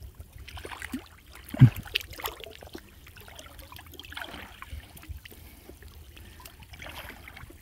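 Water sloshing and trickling as a person wades chest-deep and hauls a gill net up out of the water, the net streaming water. A brief low thump comes about a second and a half in.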